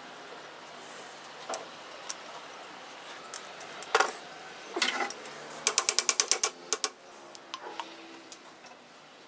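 Sharp clicks and knocks of sword parts being handled on a wooden workbench as the wooden handle scales come off the brass-pinned tang. About two thirds of the way in comes a quick run of about ten clicks a second, lasting about a second, with a few scattered clicks after it.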